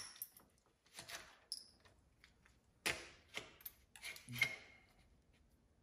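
Motorcycle handlebar controls being fitted and worked by hand, the throttle and switch housings: a few scattered light clicks and knocks, the loudest about four and a half seconds in.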